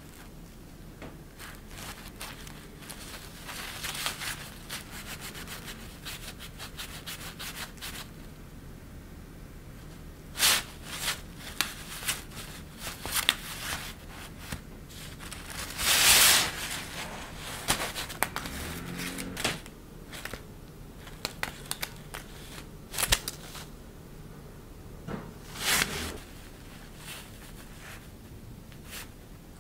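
Crinkly, shiny synthetic fabric rustling as a cat-teaser wand is pushed and wiggled underneath it. The rustling comes in irregular crackling bursts, the loudest about halfway through.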